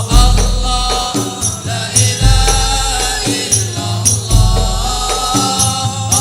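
Hadrah devotional music: frame drums with a deep bass drum stroke about every two seconds, jingling tambourine, and a melody line held over the percussion.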